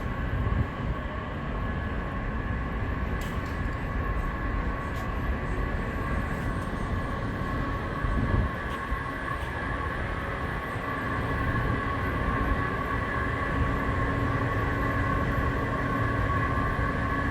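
Long subway-station escalator running: a steady low rumble of the machinery with a constant high whine on top, and a few light clicks.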